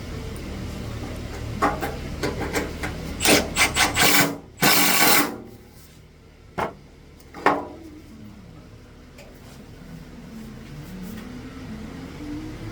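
Hand sanding or rubbing on cured body filler: a run of rasping strokes and knocks, the loudest about five seconds in, then two sharper knocks. A steady low hum in the background stops about four seconds in.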